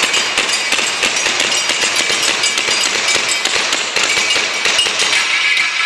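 Gas blowback airsoft pistols firing rapidly, many sharp overlapping shots and hits in quick succession for several seconds.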